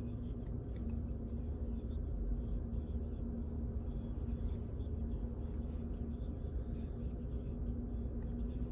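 Steady low rumble of a car heard from inside the cabin, with a constant hum.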